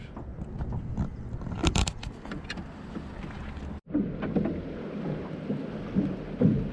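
Knocks and handling noise aboard a drift boat, with a cluster of sharp clatters about two seconds in. After a sudden break just past the middle, steady wind noise on the microphone with water and boat sounds.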